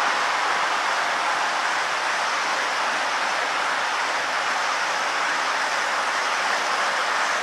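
HO scale model reefer train rolling past on the layout track: the wheels on the rails make a steady rushing noise.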